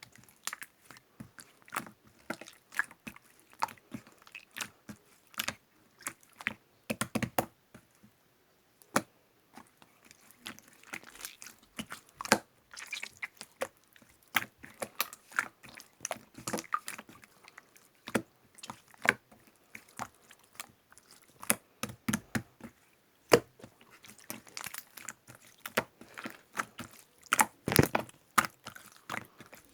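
Hands squishing and pressing slime close to the microphone, making irregular sticky clicks and pops with no steady rhythm.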